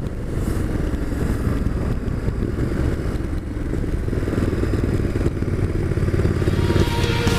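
Ducati Multistrada motorcycle under way, its L-twin engine running steadily with road and wind noise. Rock music fades in near the end.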